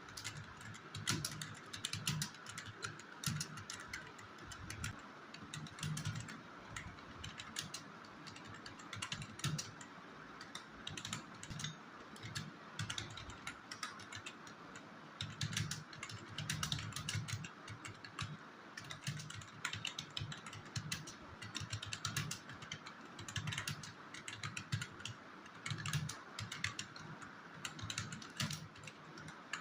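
Typing on a computer keyboard: a steady run of irregular key clicks at typing-test pace, with brief pauses here and there.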